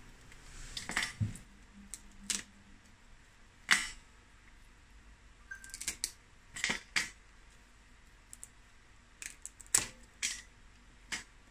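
Scattered sharp clicks and cracks of a boiled crab's hard shell as its legs are twisted and pulled off and laid on a glass plate, the loudest snap about four seconds in.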